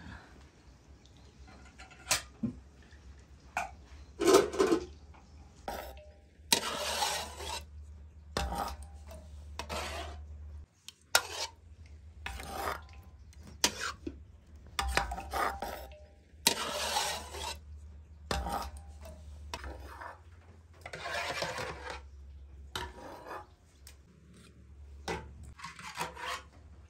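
Repeated rubbing and scraping strokes, about one every one to two seconds, some of them lasting around a second, with a few sharp knocks in between.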